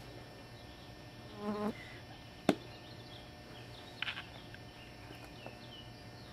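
An insect buzzing briefly close by, with a single sharp click about two and a half seconds in.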